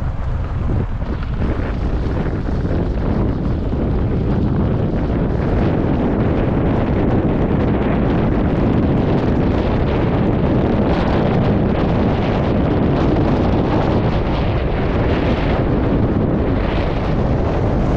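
Steady, loud wind noise buffeting the microphone of a car driving along a dirt desert track, with the rumble of the car and its tyres underneath.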